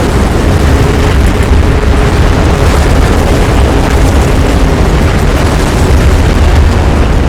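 Loud, steady rumbling noise, strongest in the deep bass, running on without a break.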